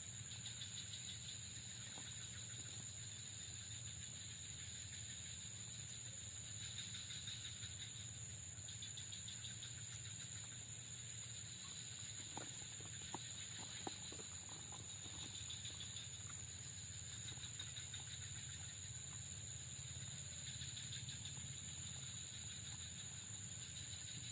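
Faint outdoor insect chorus: a steady high-pitched drone, with buzzing trills that come and go every few seconds. A low steady hum runs underneath, and a few faint clicks come near the middle.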